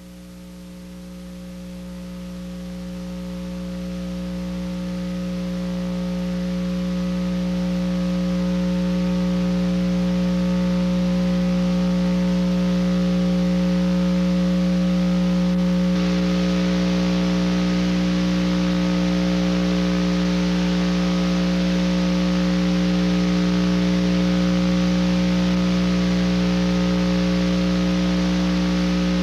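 Steady electrical hum with hiss: a low buzz with several steady overtones that swells over about the first ten seconds, then holds level.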